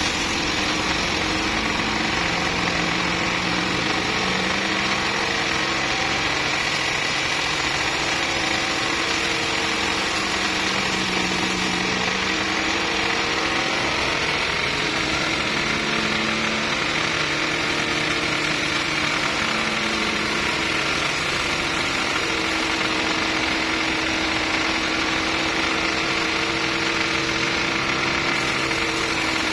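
Vertical band sawmill running, its blade cutting lengthwise through a timber beam: a steady, loud machine din with a low hum that shifts slightly in pitch now and then.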